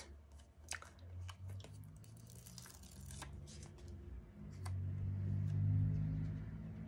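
Glitter sticker strips handled and peeled off their backing paper: light paper crackles and scattered ticks. A low rumble swells and fades in the second half, and is the loudest sound.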